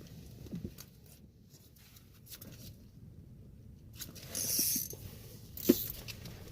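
Handling noises from a fishing rod and reel as a bite is struck: a brief scratchy rustle about four seconds in, then a sharp click.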